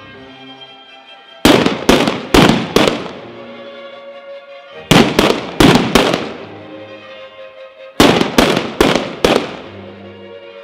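Batteria alla bolognese ground display: three volleys of four loud, sharp firecracker bangs each, a few seconds apart, over music.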